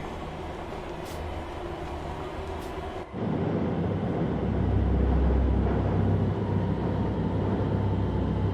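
Subway train running through a station, a steady rumble with noise above it that gets louder and deeper about three seconds in.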